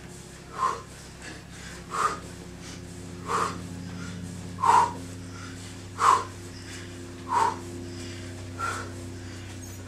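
A woman breathing out hard in seven short, forceful puffs, evenly spaced a little over a second apart. Each one paces a twist of her bicycle crunches. A steady low hum runs underneath.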